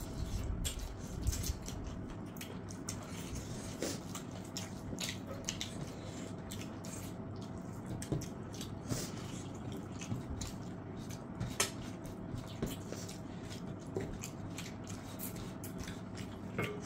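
Two people eating curry and rice with their hands: wet chewing and lip-smacking, and fingers squishing rice into gravy on steel plates, many short wet clicks and smacks.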